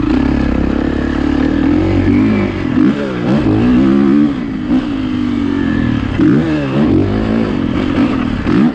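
2019 Kawasaki KX450F four-stroke single-cylinder engine being ridden hard, the throttle opened and shut so the pitch climbs and drops several times, most sharply about three and six and a half seconds in.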